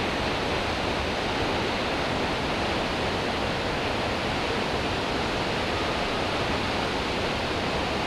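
Chitrakoot Falls, a very wide waterfall on the Indravati River in heavy flow, rushing with a steady, even noise.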